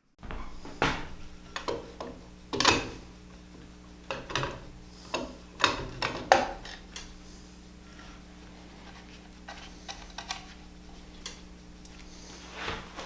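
Metal clinks, taps and knocks of hand adjustment on a Wood-Mizer BMS25 band-sawmill blade sharpener, as its turnbuckle is set so the grinding wheel just touches the back of each tooth. The clinks come thick and irregular for the first several seconds, then thin out to a few taps. A steady low electrical hum lies under them.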